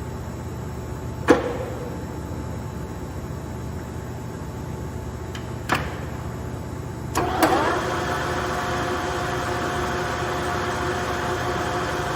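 LeBlond Regal gap-bed lathe on test run: a steady hum with two sharp clicks that ring briefly, then a clunk about seven seconds in, after which the machine runs louder with a steady whine.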